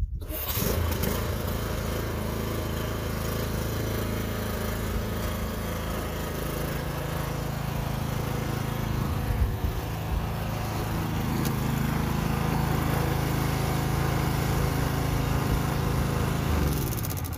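Toro TimeMaster 30-inch walk-behind mower's engine running steadily while the self-propelled mower drives itself off the truck. The sound starts suddenly just after the start and cuts off near the end.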